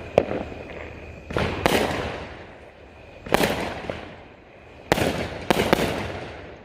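Fireworks going off: a string of about seven sharp bangs, some in quick pairs, each trailing off in a long echoing decay.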